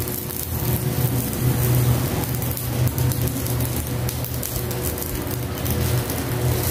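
A covered pan of kangkong stems simmering in broth on a gas stove: steady bubbling and crackling under the glass lid, over a steady low rumble.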